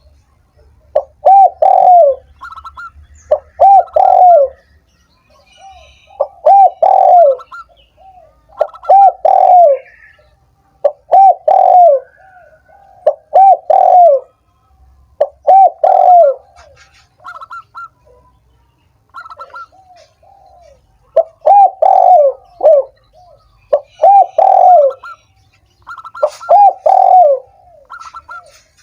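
Spotted dove (tekukur) cooing over and over, one phrase every two to three seconds, with short higher notes in between; a recording played to stimulate other doves to call.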